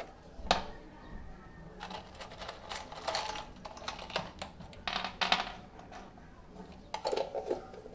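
Steel drywall screws rattling and clicking as they are tipped out of a jar and dropped onto a plywood board, in irregular clusters of small clicks.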